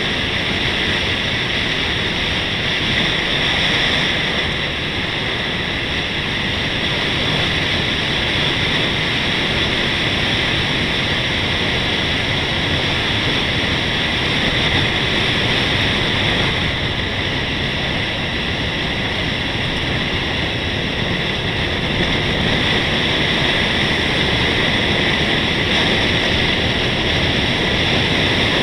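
Steady rushing wind and travel noise on a moving action camera's microphone, an even hiss over a low rumble.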